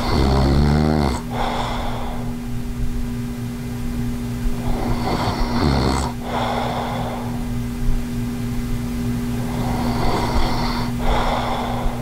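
A man snoring in his sleep with obstructive sleep apnea: three laboured breaths about five seconds apart. The first is a loud low rattling snore, the second a weaker snore, and the last mostly a rasping breath. Even between snores he is breathing deeply, struggling to draw in enough air.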